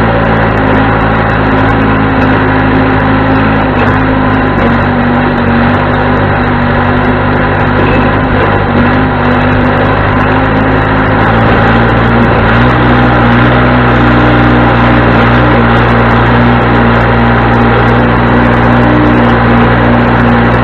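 John Deere 210C backhoe loader's four-cylinder diesel engine running steadily, its note wavering slightly. It grows a little louder about twelve seconds in.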